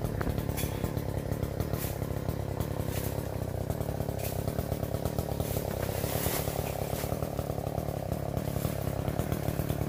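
Small petrol engine running steadily, with a few sharp knocks over it.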